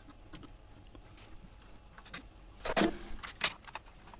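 Scattered light clicks and taps of a CPU cooler and its fan cable being handled and fitted onto a motherboard, with a louder clatter a little before three seconds in, followed by two sharp clicks.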